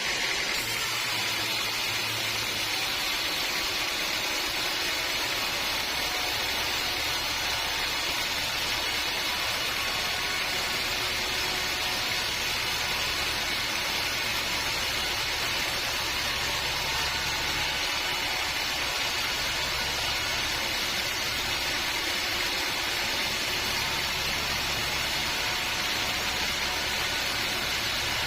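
Band sawmill running steadily, a continuous machine noise with a low hum underneath.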